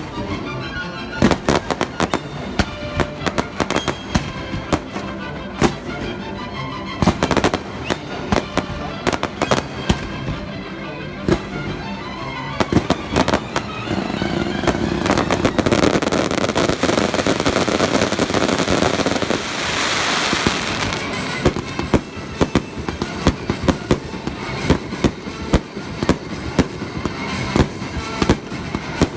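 Fireworks display: aerial shells bursting in a rapid, irregular series of bangs, thickening into a dense, continuous barrage from about 14 to 21 seconds in, with music playing underneath.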